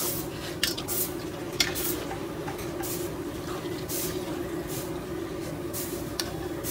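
Piyaju fritters deep-frying in a wok of hot oil, sizzling in repeated short hissy spurts. A metal perforated ladle stirs them and lifts them out, with a few sharp clinks against the wok, over a steady low hum.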